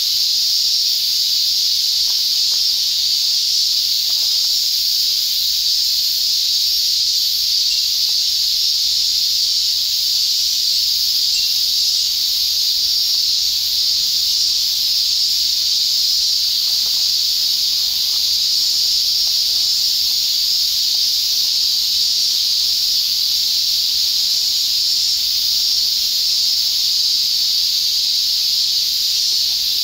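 Steady, loud, high-pitched chorus of insects droning without a break.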